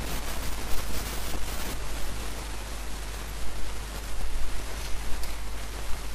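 Steady hiss with a low hum underneath: the background noise floor of a voice-over recording, with no distinct event standing out.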